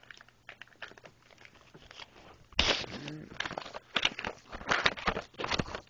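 A cardboard toy box and its packaging being pulled open by hand: faint handling clicks at first, then about two and a half seconds in, a run of loud crackling, tearing rustles.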